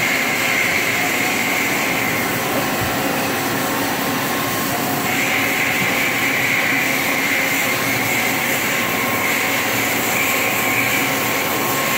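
Matsuura MC-1000 vertical machining center running its warm-up program: a steady mechanical hum with a high whine that fades about two seconds in and comes back strongly about five seconds in.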